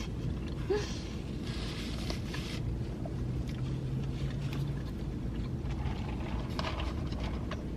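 Someone chewing food, with soft mouth sounds coming and going, over a steady low rumble.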